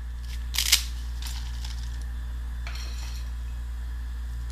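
Dry spaghetti snapped by hand: a sharp double crack about half a second in, then a few lighter snaps. A short rustle follows near the middle.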